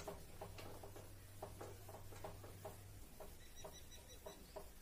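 Faint rubbing of an eraser on a whiteboard in quick back-and-forth strokes, about four a second, over a low hum that stops about three seconds in.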